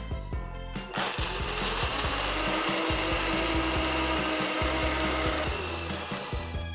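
Vitamix Personal S30 blender starting about a second in, its motor speeding up and then running steadily as it blends ice cubes and milk into a frappuccino, winding down near the end.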